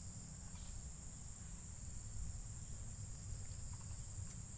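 Steady high-pitched drone of insects over a low rumble, with one brief click near the end.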